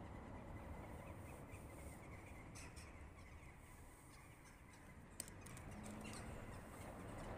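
Near silence: faint outdoor background noise with a few faint clicks and one sharper tick about five seconds in.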